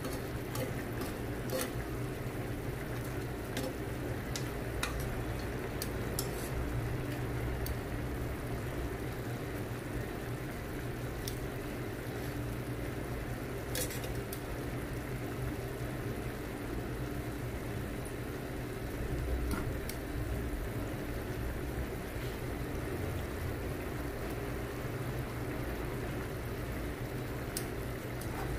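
Chicken adobo simmering in its soy sauce and vinegar braising liquid: a steady bubbling with scattered small pops as the sauce cooks down.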